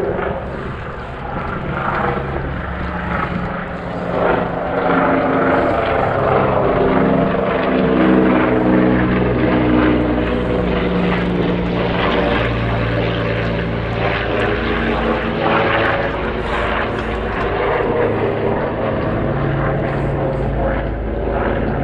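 A twin-engine propeller firefighting plane, laden with scooped water, passes low overhead with its engines straining, a steady loud drone. Its engine note drops in pitch about halfway through as it goes past.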